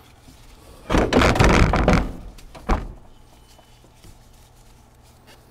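A heavy AGM car battery being worked down into its tray in an engine bay: about a second of plastic case scraping and clunking against the tray and surrounding parts, then a single sharp knock as it settles.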